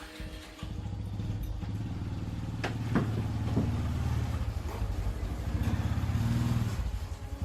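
A small engine comes in suddenly about half a second in and runs steadily with a low, pulsing note, with a few short squeaks around the middle.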